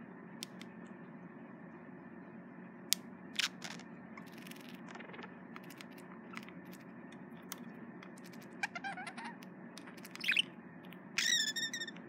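Male budgerigar chattering at its reflection in a mirror while courting, with scattered sharp clicks and short chirps, and a louder warbled call near the end.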